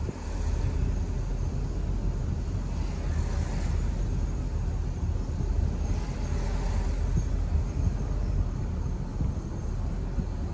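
A car driving along a street, with a steady low rumble of tyres and engine. Twice, about three and six and a half seconds in, a brief swell of hiss rises over it.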